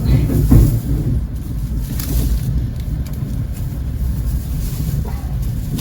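Passenger train carriage in motion: a steady low rumble of the running gear on the rails, with a few faint knocks.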